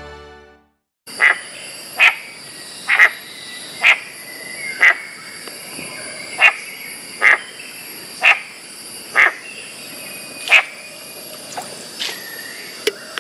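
A short animal call repeating about once a second, around ten times, over a steady high-pitched drone; the calls grow fainter and more irregular near the end.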